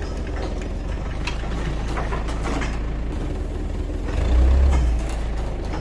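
Crane truck's diesel engine running steadily, with scattered metallic clicks and knocks. A louder low rumble swells for about half a second roughly four seconds in.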